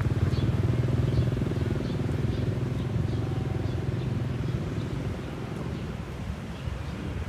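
A motor vehicle's engine running close by, loudest at first and fading away over several seconds as it passes.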